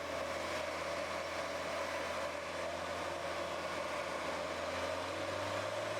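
Large drum wood chipper's engine running steadily, an even drone without sharp knocks.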